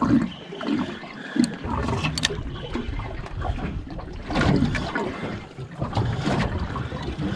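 Sea water slapping and sloshing against a boat's hull, with wind buffeting the microphone and a few light knocks.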